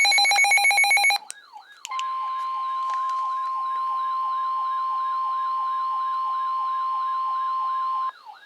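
Emergency Alert System tornado warning alert sounds. A rapid pulsing electronic alarm cuts off about a second in. A fast up-and-down siren sweep follows, with a steady single-pitch alert tone held over it from about two seconds in, and both stop shortly before the end.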